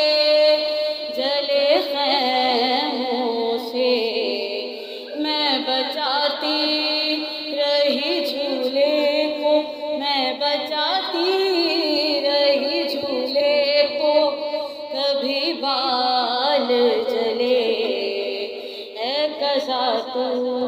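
A noha, a Shia lament, sung in long, wavering, drawn-out vocal lines.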